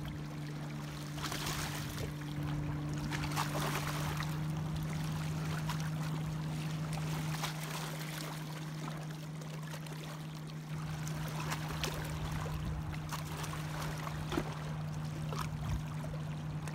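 Small river waves lapping and splashing irregularly against shoreline rocks, over a steady low hum.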